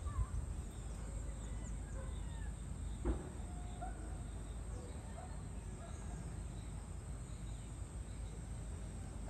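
Outdoor ambience: scattered short bird chirps over a low, steady rumble, with a single sharp knock about three seconds in.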